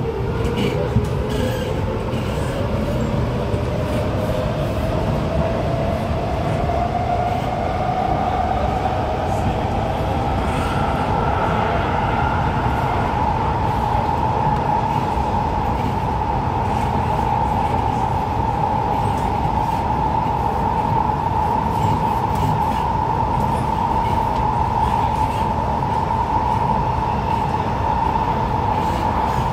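Kawasaki–Nippon Sharyo C751B metro train heard from inside the carriage, its traction motors whining as it accelerates. The whine climbs steadily in pitch over the first dozen or so seconds, then holds level as the train cruises, over a constant rumble of wheels on the rails.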